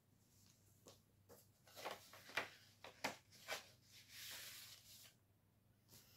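Quiet handling of paper cards: a run of soft taps and rustles, then a brief sliding rustle of paper about four seconds in.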